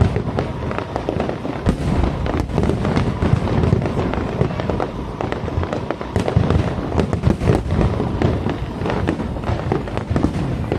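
Aerial fireworks bursting continuously, dense overlapping bangs and crackles over a low rumble.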